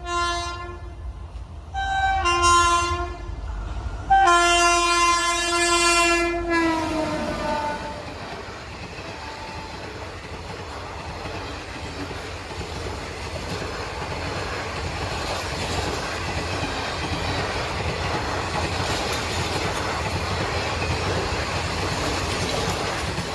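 Indian Railways WAP-7 electric locomotive's horn sounding three blasts as it approaches and passes a level crossing: a short one, another about two seconds in, and a long one whose pitch drops as the engine goes by. The coaches follow in a steady rumble of wheels clattering over the rails.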